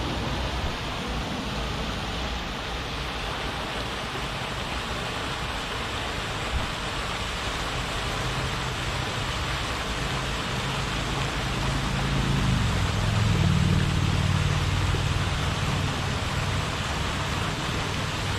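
Steady rushing hiss of a lake jet fountain's spray falling back onto the water. A low engine hum rises and fades about twelve to sixteen seconds in.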